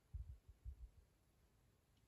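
Near silence, with a few faint, soft, low plops in the first second as cherries and thick syrup are ladled into a glass jar.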